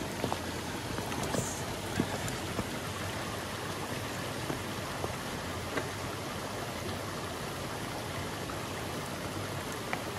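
Shallow stream running over stones in a steady wash of water noise, with a few faint knocks now and then.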